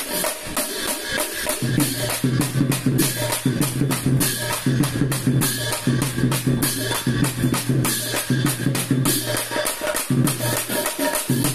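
Hand cymbals clashed in a quick, steady rhythm by a seated group of players, over a low steady tone that drops out briefly now and then.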